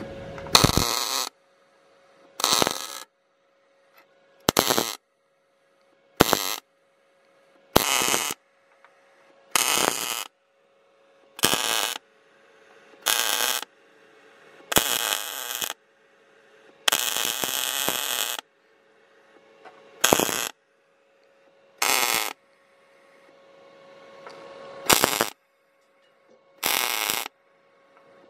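MIG welder laying a series of short tack welds on sheet steel: fourteen bursts of arc noise, each well under two seconds, coming about every two seconds, with a faint steady hum between them.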